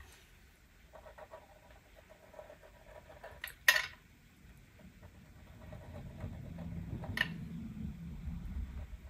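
Pen colouring on paper in soft scratchy strokes, with a sharp click about a third of the way in and a smaller one near the end. A faint low rumble runs through the second half.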